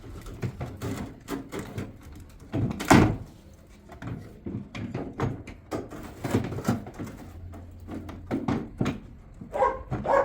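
Knocks, clunks and scraping of metal parts as the transmission is worked loose and pulled out of a twin-tub washing machine, with one loud knock about 3 seconds in.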